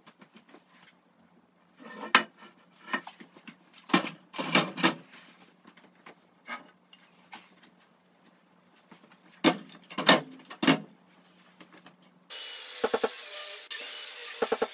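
Oak planks knocked and set down on metal sawhorses: a series of separate wooden clunks. About twelve seconds in, a handheld circular saw starts cutting through an oak plank, loud and steady.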